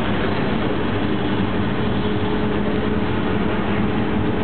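Steady engine drone and road noise inside a van's cabin at motorway cruising speed, the engine holding an even pitch throughout.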